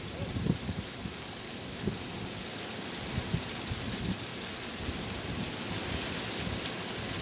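Horse moving over riding-arena footing: soft, irregular hoof thuds about once a second under a steady hiss.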